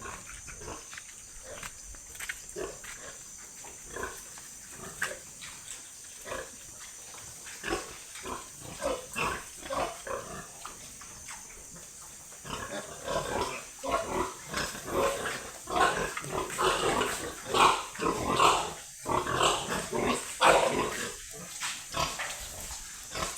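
Pigs grunting in a pen: many short grunts, growing busier and louder about halfway through, over a steady high hiss.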